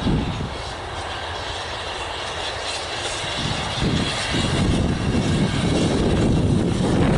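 Wind buffeting the microphone in low, rumbling gusts, one near the start and a longer, louder one from about four seconds in. Under it, a saddle-tank steam locomotive approaches working a train.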